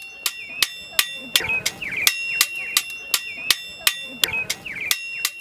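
Blacksmith's hammer striking metal on an anvil in a steady rhythm, about three blows a second, each blow ringing.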